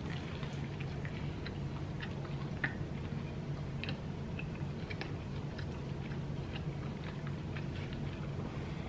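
Close chewing of mouthfuls of fried chicken sandwich, with scattered small crunchy clicks from the breading, over a steady low hum.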